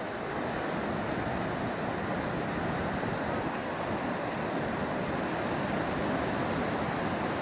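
Steady rush of ocean surf mixed with wind.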